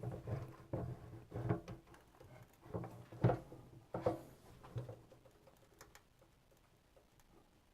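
Irregular knocks and rubbing as a bench drill's chuck is pressed up onto its Morse taper stub shaft, the loudest knock a little over three seconds in, then quieter handling from about five seconds on.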